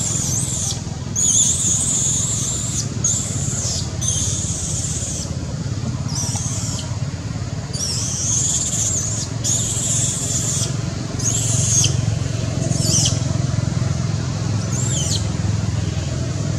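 Infant macaque crying: about a dozen high-pitched, wavering squeals in irregular succession, each up to a second or so long, as it tries to nurse from its unwilling mother. A steady low rumble runs underneath.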